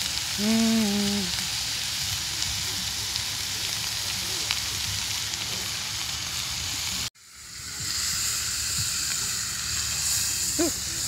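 Steaks sizzling in butter in a hot cast iron skillet, a steady frying hiss. The sizzle cuts out for a moment about seven seconds in, then comes back brighter as the meat is turned with tongs in a cloud of steam.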